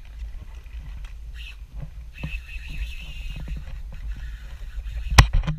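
Steady low rumble of wind buffeting the microphone on an open boat, with scattered knocks and clicks and one sharp loud knock about five seconds in.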